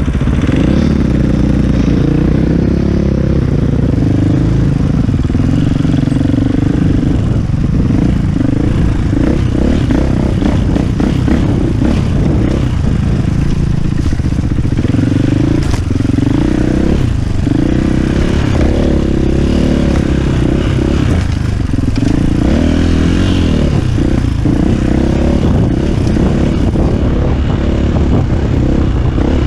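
KTM EXC450 enduro motorcycle's single-cylinder four-stroke engine running under riding load, revs rising and falling, with frequent short knocks and rattles.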